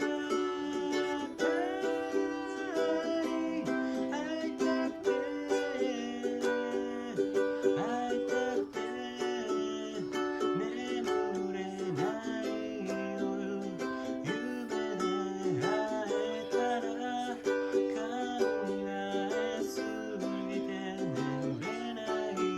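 Background music: a light tune of plucked string notes, some of them sliding in pitch, played continuously.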